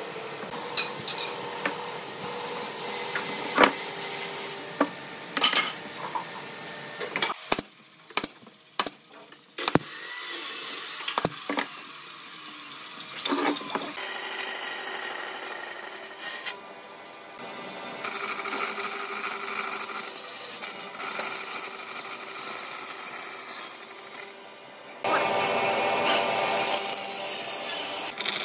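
Scattered knocks and clicks of wooden chair parts being handled and set in place. About halfway through, a bandsaw starts running steadily, cutting the corners off a pine board, with two short breaks in the cutting.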